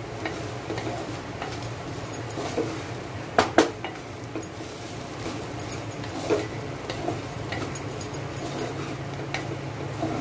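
A spoon scraping and knocking against a cooking pot while a bitter-gourd stir-fry is sautéed, with a few sharper clanks about three and a half and six seconds in. A steady low hum runs underneath.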